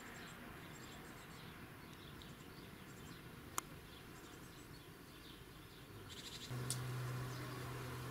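Countryside ambience with many small birds chirping. A single sharp click sounds a little past halfway, and near the end a steady low buzz of a flying insect starts close by.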